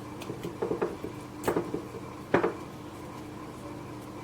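Cardamom pods being cracked open by hand: a few sharp cracks and clicks, the loudest about two and a half seconds in, over a faint steady hum.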